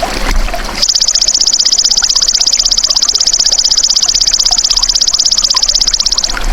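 Belalang emas (golden grasshopper) singing: a loud, high, rapidly pulsing buzz held steady, starting about a second in and stopping just before the end. Trickling water is heard around it.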